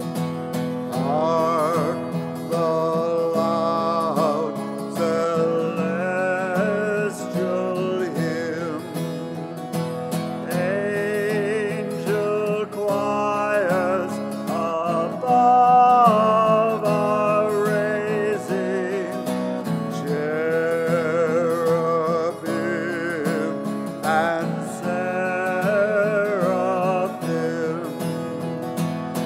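A slow hymn sung by a single voice with vibrato, over held chords of instrumental accompaniment.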